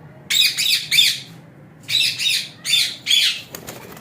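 Parrots squawking: a run of harsh, loud squawks, about five in four seconds, some in quick pairs.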